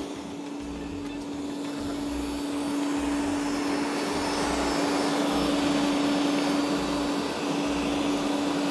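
Kenwood stand mixer running with its whisk attachment beating butter, oil and powdered sugar in a steel bowl: a steady motor hum that grows gradually louder over the first few seconds.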